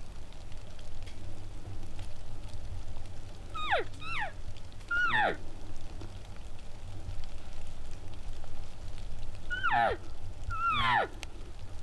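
Elk calling: short, squealing mews that fall steeply in pitch, given in two pairs, one around four to five seconds in and another near the end.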